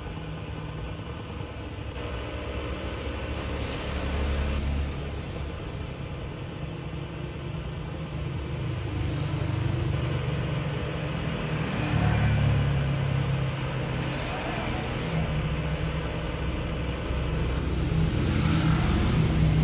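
Steady low rumble, like engines running, that swells and fades in level a few times.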